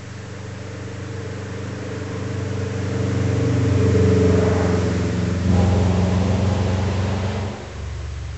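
2002 Subaru Forester SF5 naturally aspirated flat-four with an unequal-length header and a straight-piped exhaust with no rear muffler, driving past: it grows louder as it approaches, its pitch drops as it goes by, then it falls away sharply near the end.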